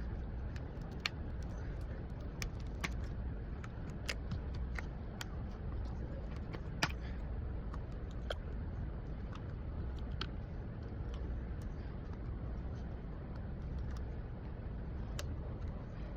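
Irregular small sharp clicks and taps, about twenty of them scattered through, over a steady low rumble; the loudest click comes about seven seconds in.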